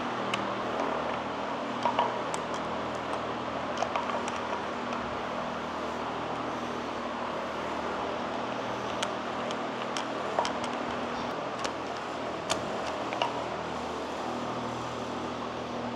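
Steady mechanical hum, with scattered light clicks and taps of hand tools working at the front of an engine where the timing chain is being tightened.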